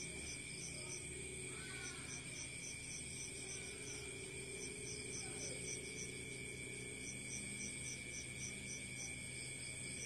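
Insects chirping in the background: a steady high trill with a second chirp pulsing about four times a second, over a faint low hum.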